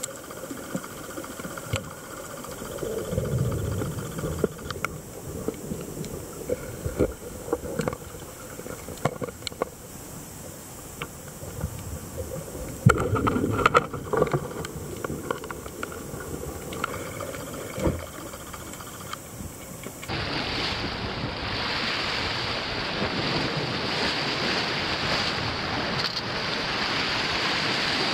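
Underwater recording on a rocky reef: a muffled wash of water with scattered sharp clicks and a couple of louder swells. About twenty seconds in it changes abruptly to surf breaking and washing over coastal rocks.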